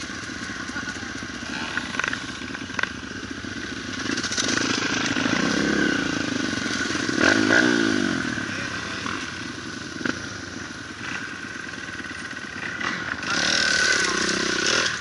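Several dirt bike engines running at idle. One is revved up briefly about halfway through, and a bike rides past close by near the end, the loudest part.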